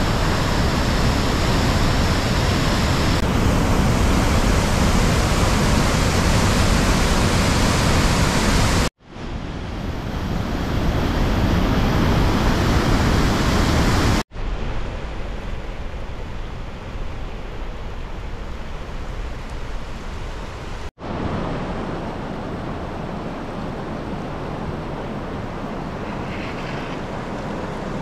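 Steady roar of floodwater rushing down sandstone falls and rapids, a reservoir overflowing with heavy spring runoff. The rush cuts off abruptly three times and is quieter in the later part.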